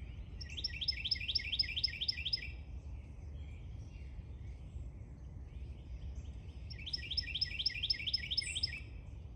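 A songbird singing twice, each song a quick run of about nine repeated notes lasting some two seconds, over a steady low background rumble.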